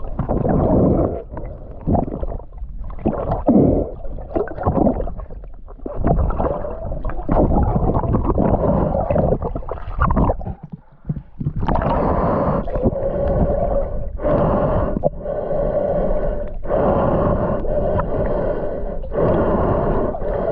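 Muffled water sounds with gurgling and snorkel breathing. About halfway in, a steady humming drone with a regular pulse joins them.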